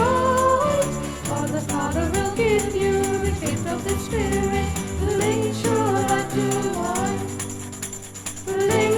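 1970s British Christian folk-rock song: several voices singing together over guitars, bass and drums. The music drops back briefly near the end, then comes in again at full level.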